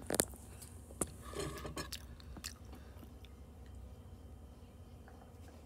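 Someone chewing food close to the microphone, with a few sharp clicks and crunchy bites in the first two seconds or so, over a steady low hum.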